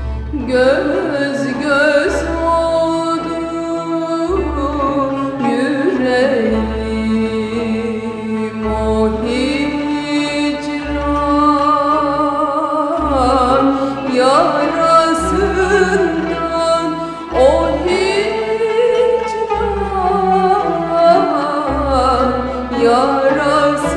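Turkish classical song in makam Rast: a woman sings a slow, ornamented melody with gliding pitch, accompanied by bowed strings.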